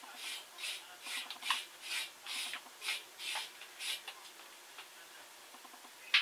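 Rhythmic scrubbing strokes by hand on a welded steel frame, about three a second, stopping about four seconds in. A short, sharp, loud click comes near the end.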